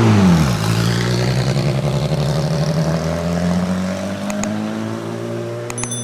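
Porsche 997 GT2 RSR's twin-turbo 3.9-litre flat-six: the revs drop sharply at the start, then the engine runs steadily at lower revs, rising and easing slightly, with a couple of sharp clicks near the end.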